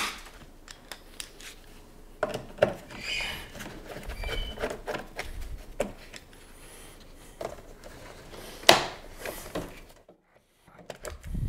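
Scattered clicks, taps and scrapes of a screwdriver and plastic as a large wiring-harness connector is worked loose at a car's engine-bay fuse box. One sharper click comes a few seconds before the end.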